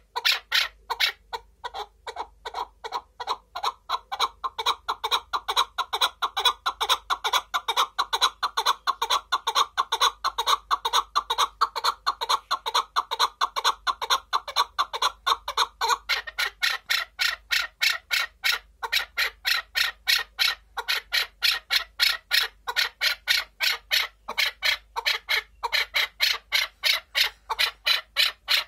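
Caged chukar partridge calling: a long unbroken series of short, sharp clucking notes, about three a second.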